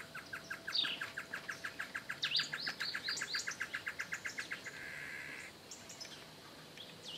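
Birds calling: a rapid, even series of short notes, about eight a second, for roughly four and a half seconds, with higher chirps over it, then a brief buzzy call about five seconds in.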